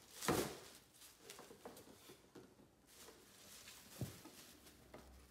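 Bubble wrap rustling and crinkling as a boxed vinyl figure is lifted out of a shipping box and unwrapped, loudest just after the start, with another sharp rustle about four seconds in and small crackles in between.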